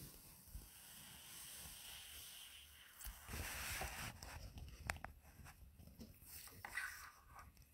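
Faint handling noise: a soft rustling hiss, then scattered clicks and knocks from about three seconds in, as the recording camera is moved and covered.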